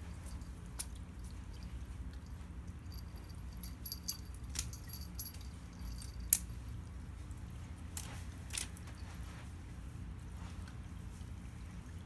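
A small bell jingling in short, irregular shakes, with scattered sharp taps, while a cat bats at a feather teaser toy. The loudest tap comes a little past halfway.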